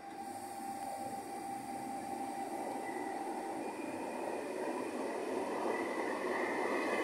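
PKP Intercity electric multiple unit moving along the platform track, its wheel-and-rail running noise growing steadily louder, with a faint steady whine that fades about halfway and a higher whine rising in strength near the end.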